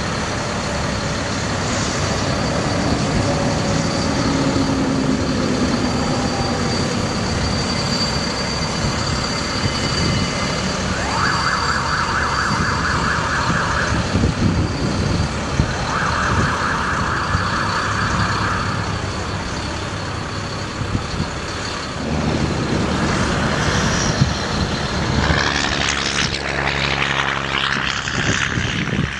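Ford F750 bucket truck running, with its hydraulics working the Versalift VN50I aerial boom as it folds and swings out: a steady engine and pump drone. Two spells of fast rattling pulses come in, each about three seconds long, about a third and halfway through.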